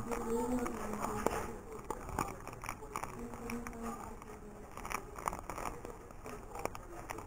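Crinkling and light tapping of a plastic instant-ramen seasoning sachet as the powder is shaken out of it, a run of small irregular clicks and rustles.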